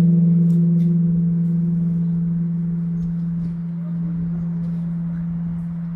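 The Emille Bell (Sacred Bell of King Seongdeok), a huge Silla-era bronze temple bell, ringing on after a strike: a deep, steady hum that fades slowly, its higher overtones dying away first.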